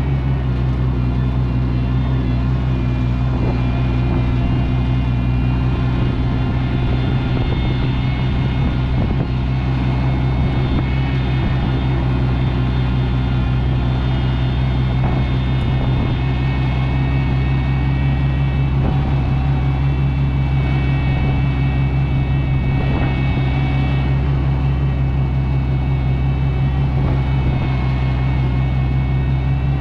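Oliver 880 tractor's gasoline engine running steadily at a constant speed while the tractor is driven.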